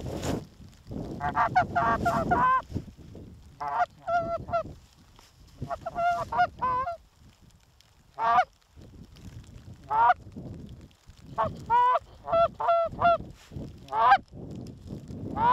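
Several Canada geese honking: bunches of short, quick honks and clucks that overlap, coming every second or two with brief pauses between.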